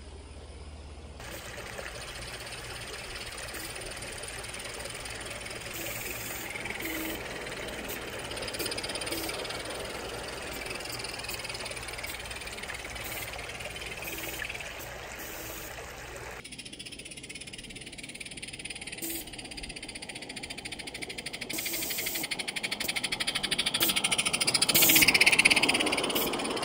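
Water trickling over a small garden-pond waterfall, with scattered short calls. Then a live-steam garden-railway freight train approaches and rolls past, its wheels clicking and rattling on the track, growing louder to its loudest point just before the end as the locomotive goes by.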